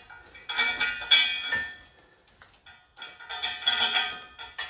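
Metal clanking against a thick perforated steel welding-table plate, which rings after each knock, in two clusters of clanks.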